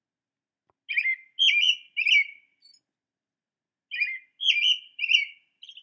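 American robin singing: two short phrases of three warbled, whistled notes, the first about a second in and the second about four seconds in, with a pause between.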